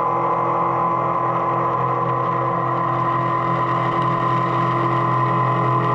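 CNC mill taking a finishing pass in 6Al-4V titanium with a 3/4-inch Kennametal Harvi IV eight-flute endmill at 2546 RPM and 40 inches per minute, under flood coolant. A steady cutting hum with several held tones over it.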